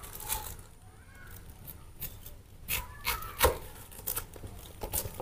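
A knife cutting into a watermelon: a run of irregular crisp cracks and scrapes, the loudest about three and a half seconds in.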